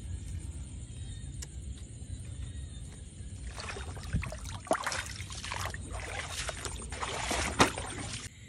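Water splashing and dripping as a fish is pulled out through the neck of a woven bamboo fish trap. Rustling and splashing pick up about halfway through, with a few sharp slaps, the loudest near the end.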